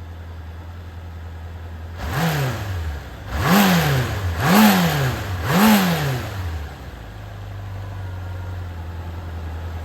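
Honda CB750F air-cooled inline-four engine idling, then blipped four times in quick succession, the revs rising and falling each time, before settling back to idle. The seller describes it as running without abnormal noise.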